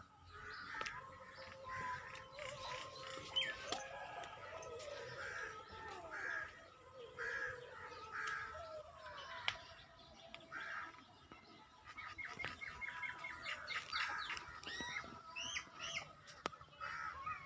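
Several birds chirping and calling back and forth, with a quick run of short repeated notes about twelve seconds in, followed by rising and falling whistled calls.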